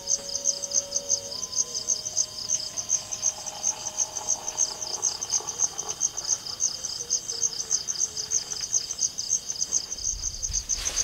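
Crickets chirping in a steady, rapid, high-pitched pulse that never lets up.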